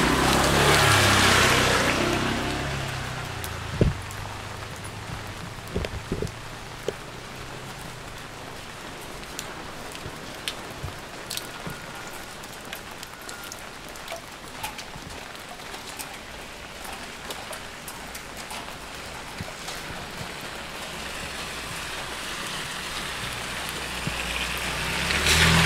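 Steady rain falling on a wet street, with scattered sharp drips ticking close by. A motor scooter passes in the first couple of seconds. A car comes up the wet road near the end and is the loudest thing there.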